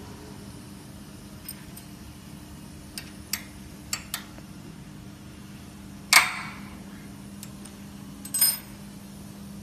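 Scattered sharp metallic clicks and knocks from hands working the metal fixtures and adjustment parts of an ACF/COF bonding machine's quartz-bar stage. The loudest is a knock about six seconds in with a short ringing tail, and a few clicks come together near the end, over a steady low machine hum.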